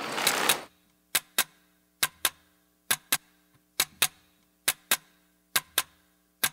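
Music intro made of sharp clicks in pairs, one pair about every second like a clock's tick-tock, over a faint steady low drone. A short hissing swell sounds at the very start.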